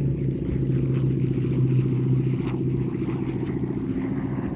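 Steady drone of the Hispano Buchon's Rolls-Royce Merlin 500 V12 engine in flight, holding an even pitch.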